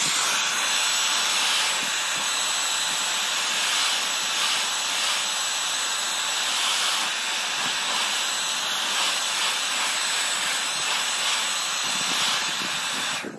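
Handheld hairdryer blowing steadily, a loud rush of air with a thin high whine, held close to a car badge to heat and soften its foam adhesive. It cuts off suddenly near the end.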